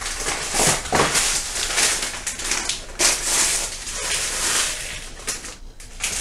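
Dry boxed stuffing mix being poured from its packets into a mixing bowl: several rustling, crackling bursts of dry bread crumbs and packaging.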